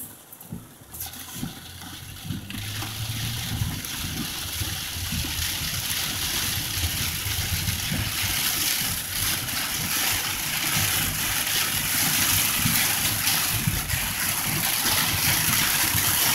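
Heavy rain pelting the car and tyres hissing through water on the road, heard from inside the car. The rush builds steadily louder from a couple of seconds in as the car pulls away.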